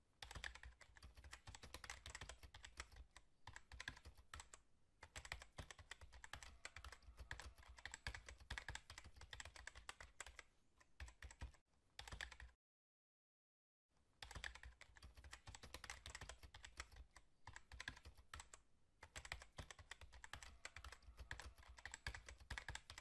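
Faint, rapid keyboard typing: a dense run of irregular key clicks that stops for about a second and a half past the middle, then goes on again.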